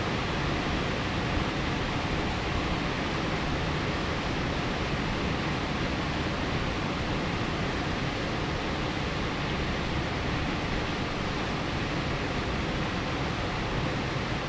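Heavy rain pouring steadily in a downpour, a dense, even hiss with wind in it and no thunder.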